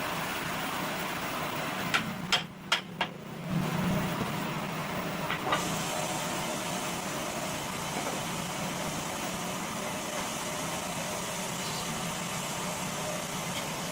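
Woodworking machinery running steadily with a low hum; about two seconds in a few sharp knocks come and the running sound briefly drops away, then it picks up again and runs on.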